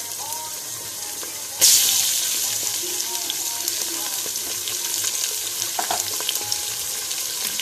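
Raw chicken pieces sizzling in hot oil with fried onions and ginger-garlic paste in a steel pot. The sizzle jumps suddenly louder about a second and a half in, as more chicken goes into the oil, and stays loud.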